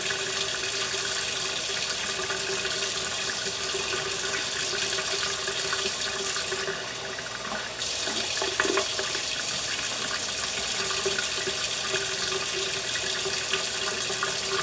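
Kitchen tap running steadily into a stainless steel sink. About halfway through, the sound of the stream changes for about a second as a plastic cup is filled under it, followed by a few light knocks.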